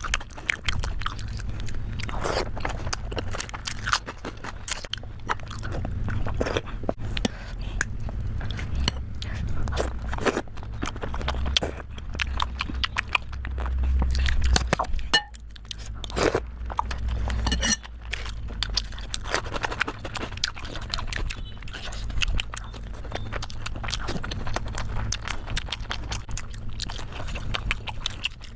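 Close-miked chewing of steamed momos, with many small wet mouth clicks and smacks as the dumplings are bitten and chewed.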